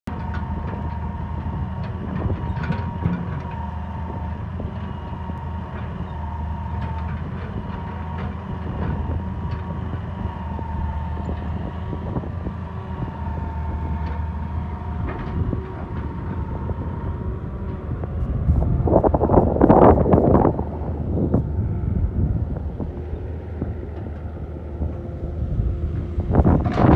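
Hitachi hydraulic excavator's diesel engine running steadily, with a steady higher whine over the drone and occasional knocks as its bucket works among stone blocks. A louder rush of noise lasts about two seconds around two-thirds of the way through and returns near the end.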